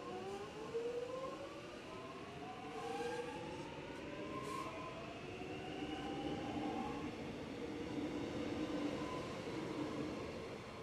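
Suburban electric train pulling away, its traction motors whining in several tones that rise steadily in pitch as it accelerates, over a growing rumble of wheels on rail.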